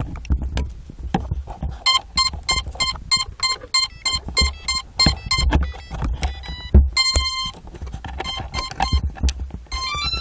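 Electronic beeping tones: a fast, even run of short beeps at about four a second, a longer beep cluster, then a quick rising run of beeps near the end. Low bumping and rubbing noise of the recording device moving against fabric runs underneath.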